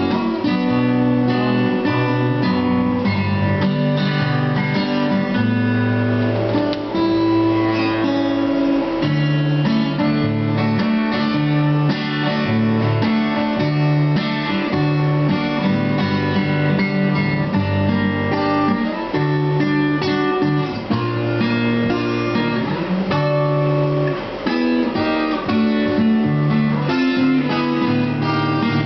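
Acoustic guitars playing an instrumental passage: strummed chords that change every second or two, with quick picked single notes over them.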